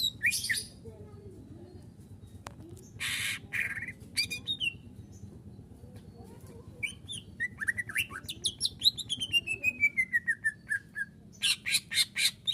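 Cucak ijo (greater green leafbird) singing a varied song full of mimicked phrases: sharp chirps, a rasping burst about three seconds in, a long run of notes falling in pitch, then a fast series of loud notes near the end.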